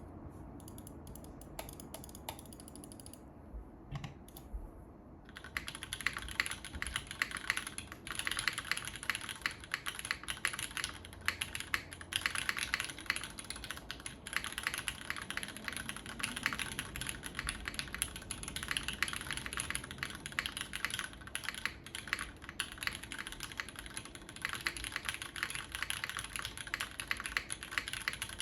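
UTD 360 TKL mechanical keyboard with Cherry MX Black linear switches on a full aluminium plate and GMK keycaps being typed on. A few scattered keystrokes give way to fast, continuous typing from about five seconds in.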